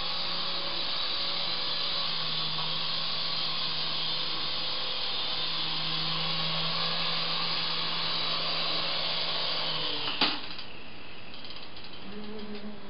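Syma S109 mini remote-control helicopter's small electric motors and rotors whirring steadily in flight. About ten seconds in there is a sharp knock and the whir stops.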